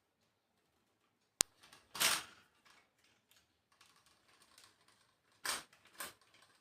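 Handling noises from a new tripod and its mobile holder: one sharp click a little over a second in, then short scrapes and rustles as the parts are moved, with two louder scrapes near the end.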